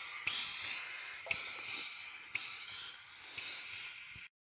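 Steam hissing from a 7¼-inch gauge live-steam model of an SNCB Type 5 locomotive, surging about once a second in time with its working steam-driven water pump, with a few light clicks. It cuts off abruptly near the end.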